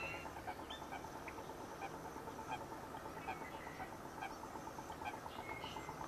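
Lakeshore wildlife: scattered short bird chirps over a faint, fast, steady pulsing trill.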